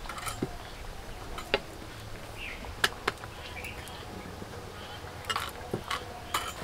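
Wooden rolling pin rolling out paratha dough on a stone board: a scatter of light clicks and knocks over a faint steady background.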